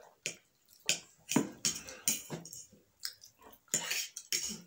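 Close-up eating sounds of two people eating chow mein noodles: chewing and slurping, heard as a string of about eight short sharp sounds with brief pauses between them.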